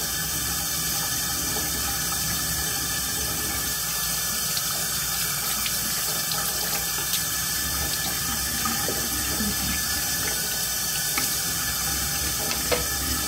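Water running steadily from a bathroom sink tap into the basin.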